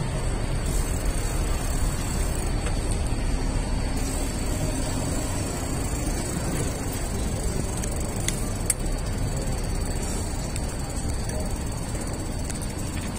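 City street ambience heard while walking: a steady low rumble of distant traffic, with a faint steady high whine above it.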